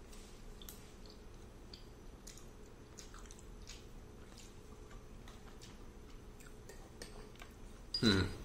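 Quiet eating sounds: scattered faint clicks of a utensil against a ceramic bowl, with chewing. About eight seconds in there is a single louder thump.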